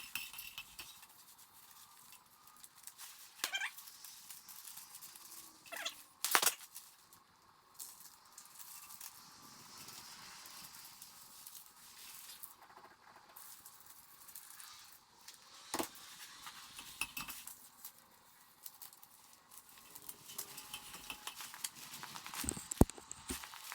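Sporadic light clicks, knocks and metallic clinks of tools and hardware being handled, with a sharper knock about six seconds in and another near the end.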